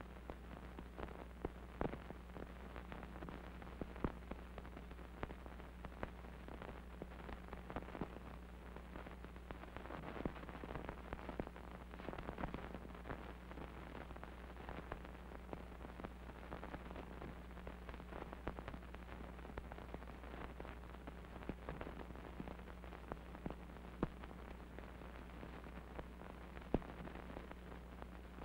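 Worn old film soundtrack noise: a steady low hum under a hiss, with frequent crackles and pops throughout.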